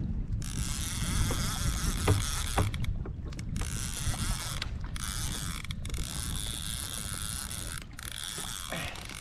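Fishing reel's drag paying out line in a steady mechanical whir that pauses briefly several times: a big hooked fish is taking line on its run.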